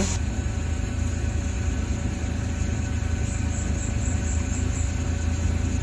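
Suzuki Carry DA63T's small three-cylinder engine idling steadily, heard from inside the cab as a low, even hum.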